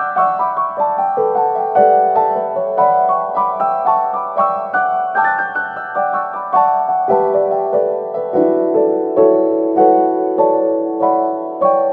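Background piano music: a steady run of single notes at about three a second, each struck and fading.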